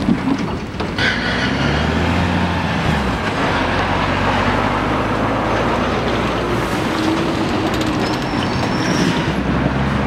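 Articulated livestock lorry driving slowly past close by: its diesel engine running with a low, steady pitch over road and trailer noise.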